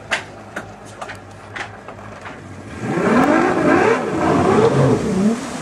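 Motorboat engine revving hard, its pitch rising and falling several times for about two and a half seconds from about three seconds in. A few sharp clicks come before it.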